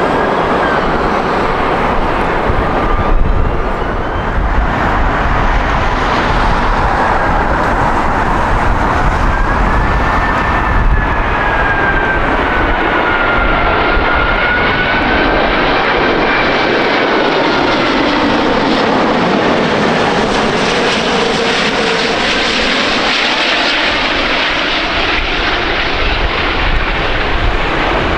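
Jet airliner passing close by on takeoff or landing: a loud, continuous engine rush with a thin wavering whine over it, and the tone of the rush slowly sweeps down and back up partway through as the aircraft goes past.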